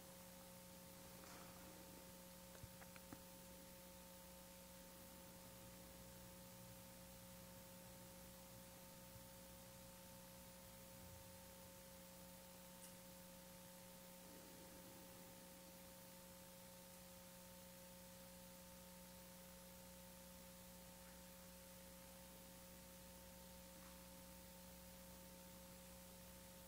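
Near silence: room tone with a faint steady hum made of a few thin tones, and a few small soft clicks about two to three seconds in.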